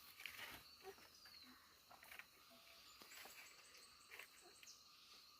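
Near silence: quiet outdoor ambience with a few faint scattered clicks and a faint falling bird chirp about a second in.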